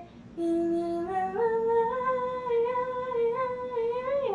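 A woman humming a slow melody in long held notes. It starts about half a second in, steps up in pitch after about a second, and slides down near the end.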